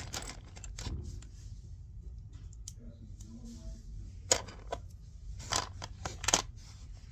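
Scissors cutting, with soft rustling of handled material and a few sharp snips in the second half.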